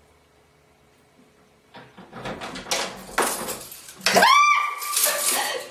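A door is unlatched and pushed open with a series of clicks and knocks, then about four seconds in a woman screams in fright. The scream rises sharply in pitch and holds for about a second.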